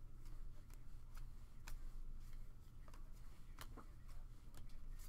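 Stack of glossy Panini Certified basketball cards being flipped through by hand: light, irregular clicks and slides as each card is moved from the front to the back of the stack.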